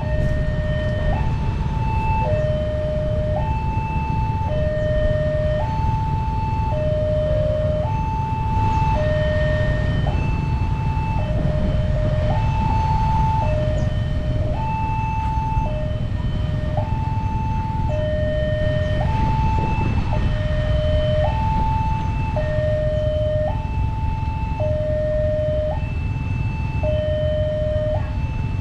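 Railway level crossing warning siren sounding continuously, alternating between a low and a high tone about once a second, over a steady low rumble.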